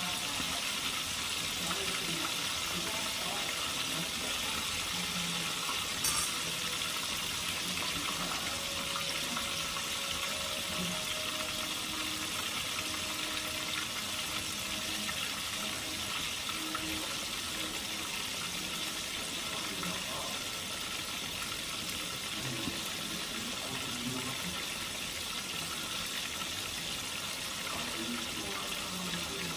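Floured white snapper fillets frying in hot oil in a cast-iron skillet: a steady sizzle, with one short click about six seconds in.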